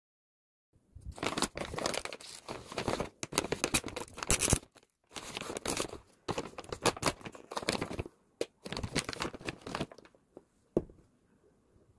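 Crinkling and rustling of a plastic pouch of dried prunes as it is opened and reached into, in bursts with short pauses that die away about ten seconds in, followed by one sharp click.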